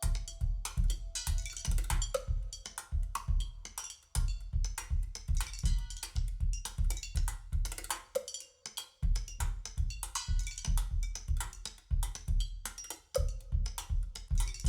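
Drum-led music played back through Elfton Vegas II loudspeakers and picked up in the room: a steady beat of heavy bass-drum hits under cymbals and pitched notes. The bass drops out for about a second roughly eight seconds in.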